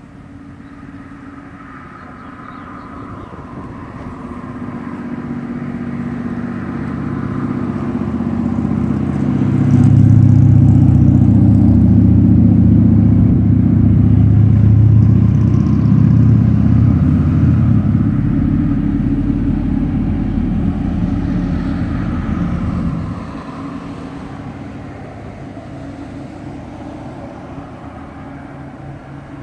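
An engine's low hum, growing louder over several seconds, holding loud for a long stretch, then dropping off suddenly.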